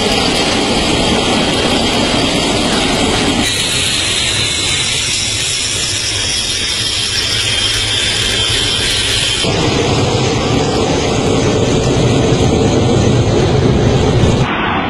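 Delta-wing fighter jet's engine running loud and steady as the jet rolls along a road, with a thin high whine over the noise. The sound shifts abruptly twice, about three and a half and nine and a half seconds in.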